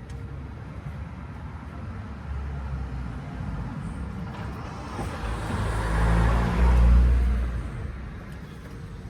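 A car passing by on a nearby road, its engine and tyre noise swelling up about halfway through, loudest a couple of seconds later, then fading away, over a steady low traffic rumble.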